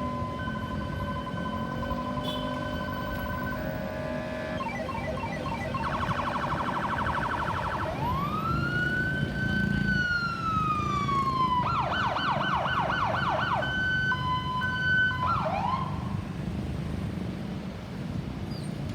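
Ambulance's electronic siren switching through its tones: a steady tone, a fast warble, one long wail that rises and slowly falls, then a rapid yelp and a few short sweeps before it stops about sixteen seconds in. Road noise runs underneath.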